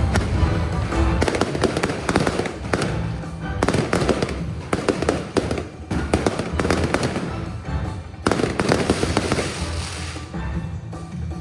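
Aerial fireworks bursting and crackling in rapid clusters of sharp pops, over music playing throughout.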